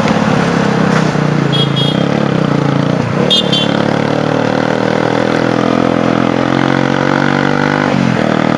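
Motorcycle engine running on the move, its pitch climbing slowly and dropping back briefly about three seconds in and again near the end. Two short high chirps sound early on the way through.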